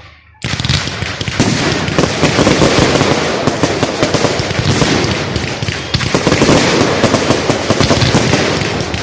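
Fireworks display: after a short lull, a dense barrage of rapid bangs and crackling breaks out about half a second in and carries on without a break.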